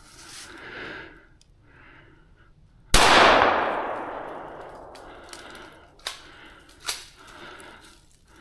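A single gunshot about three seconds in, its report echoing and fading over about two seconds, followed by two short sharp clicks about a second apart.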